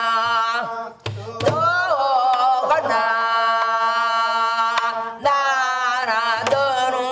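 Korean traditional vocal singing (gueum, wordless vocables), with long held notes that waver in pitch. There are short breaks about a second in and again about five seconds in, with a few sharp drum strokes and a steady low tone underneath.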